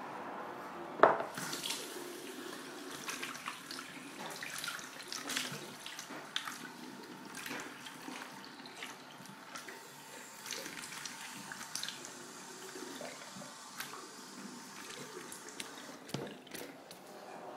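Running water, like a tap into a sink, with scattered clinks and knocks of things being handled; a sharp knock about a second in is the loudest.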